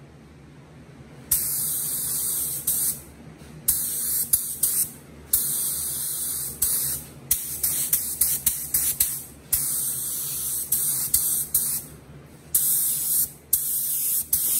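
Compressed-air paint spray gun hissing in a dozen or so on-off bursts, some long and some brief, as the trigger is pulled and released while laying down a silver base coat at about 8 PSI. The bursts start about a second in, over a low steady hum.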